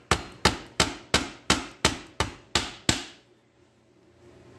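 Small hammer knocking pins into the internal shift linkage of a Tremec TR3550 transmission: about nine sharp metal taps, roughly three a second, that stop about three seconds in.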